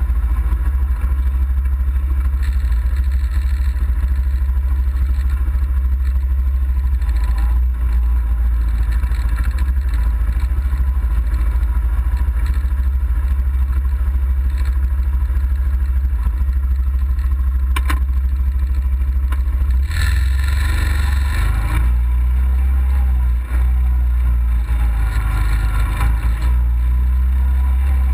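Engine of an off-road vehicle running as it crawls over rock, under a constant heavy low rumble. It grows louder and harsher for a couple of seconds about two-thirds of the way through, and again shortly after. A single sharp click comes just before the first of these.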